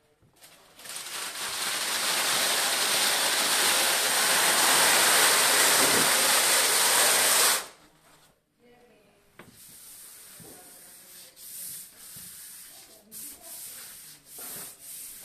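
A loud, steady hiss lasts about seven seconds and stops abruptly. It is followed by quieter, irregular rubbing and rustling as a sheet of self-adhesive backdrop paper is smoothed onto a wall by hand.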